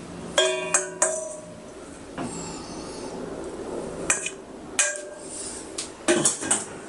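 Tableware clinking: three sharp clinks with a short ring in the first second, then single clinks about four and five seconds in and a quick run of them near the end.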